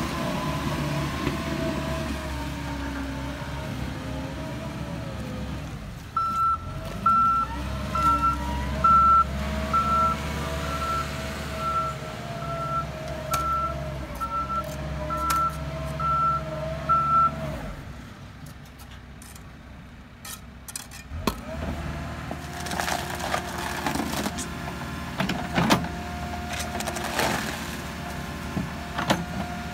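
Case 590 backhoe loader's diesel engine running as the machine moves through mud. Its reversing alarm beeps about one and a half times a second from about six seconds in until about seventeen seconds in. The engine sound drops for a few seconds, then sharp knocks and cracks come as the backhoe bucket digs.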